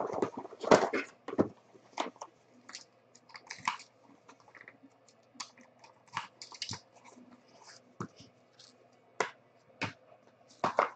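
Cardboard trading-card pack boxes being handled and opened by hand: irregular taps, clicks and rustles, the loudest in the first second or so.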